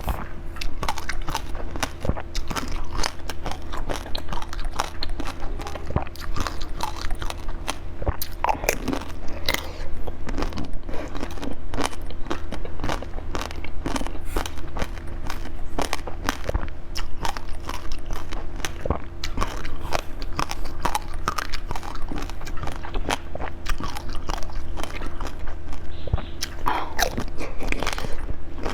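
Close-miked mukbang eating: crunchy bites and chewing, a dense run of irregular crackles and clicks, over a steady low hum.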